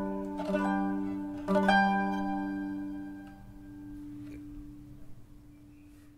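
Mandolin playing the closing chords of a solo melody: a few plucked chords in the first two seconds, then a final chord left to ring and slowly fade away.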